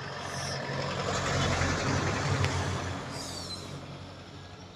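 A truck driving past: its engine and tyre noise swell to a peak about two seconds in, then fade away.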